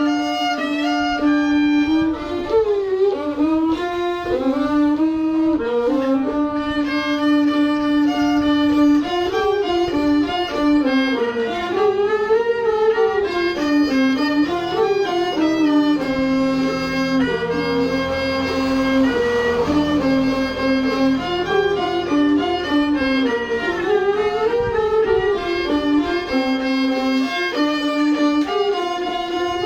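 A bowed fiddle playing a slow melody, holding long notes and sliding between them, with a soft low sustained tone underneath in the middle part.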